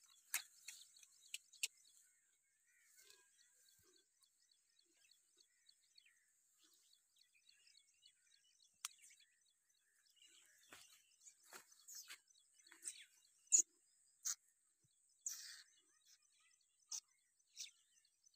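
Faint, scattered rustles and short clicks of leafy shrubs and grass being brushed, with a few louder ones in the second half, over a faint steady high hiss.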